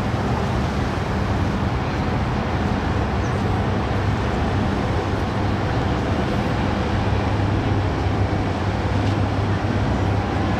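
Diesel engines of a passing NYC Ferry catamaran running with a steady low hum, over a constant wash of noise.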